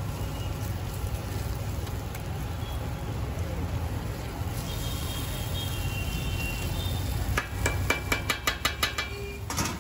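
Steel utensils working a dosa topping on a flat iron griddle over a steady low street rumble, with a quick run of about ten sharp metal clinks near the end.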